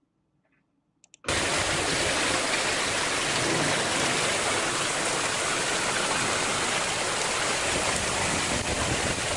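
Torrential rain pouring down in a steady, even hiss, starting abruptly about a second in just after two faint clicks.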